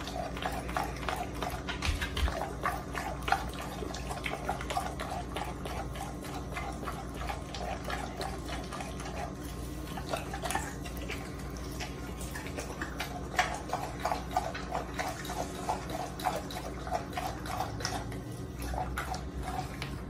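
Pit bull-type dog licking and chewing a whole raw chicken: wet licking and smacking in runs of about three a second, with scattered sharper clicks of teeth on the meat.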